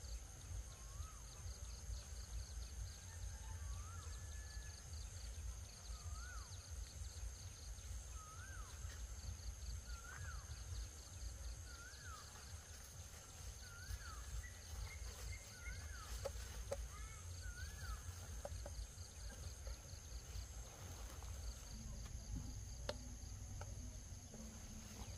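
An animal calling over and over: short rising-then-falling calls, about one a second, that stop a little past two thirds of the way through. A steady high-pitched buzz runs underneath.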